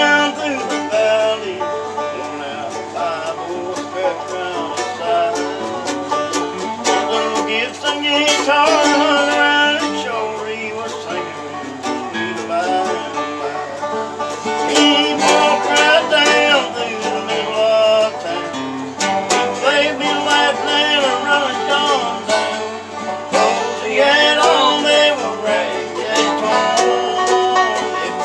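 Acoustic bluegrass string band playing together, with banjo and acoustic guitar picking a busy, driving tune.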